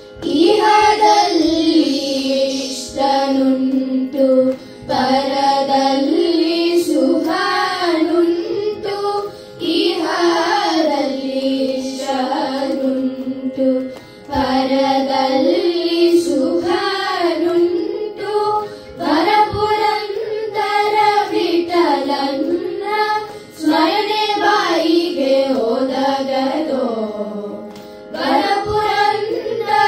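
Children singing a Carnatic devotional song about Rama through microphones, in phrases with short pauses between them, over a steady drone.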